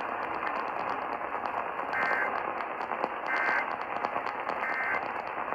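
Three short bursts of Emergency Alert System data tones, the end-of-message signal that closes a Severe Thunderstorm Warning. The bursts are evenly spaced, a little over a second apart, over a radio's steady hiss and crackling static.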